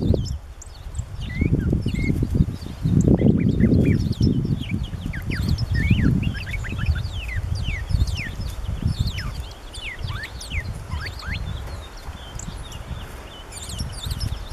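Small songbirds calling: many short, sharp chip notes, each falling steeply in pitch, scattered throughout from American tree sparrows and an unidentified bird whose notes partly resemble a northern cardinal's. A louder low rumble swells and fades underneath, strongest about three seconds in.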